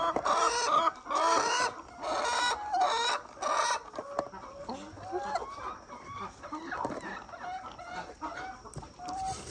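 Laying hens clucking. About five loud calls come in the first four seconds, then quieter, scattered clucks follow.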